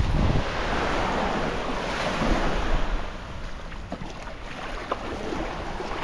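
Wind on the microphone and surf washing on the beach, louder for the first few seconds and then easing. A few light knocks come in the second half.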